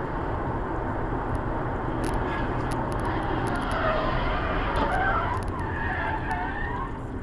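Steady road and engine noise heard from inside a car, with tyres squealing in wavering tones for about three seconds in the second half as a car ahead skids and spins out.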